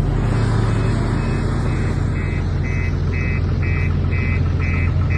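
A heavy vehicle's engine running steadily, heard from inside the cab, with a reversing alarm starting about two seconds in and beeping about twice a second.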